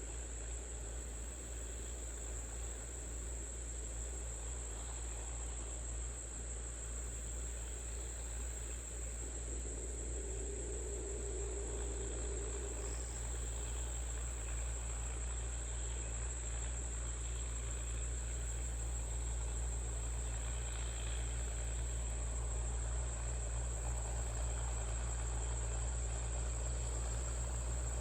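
Insects trilling steadily at a high pitch over the low, steady drone of a tractor engine, the Allis-Chalmers D17. The engine grows slowly louder toward the end.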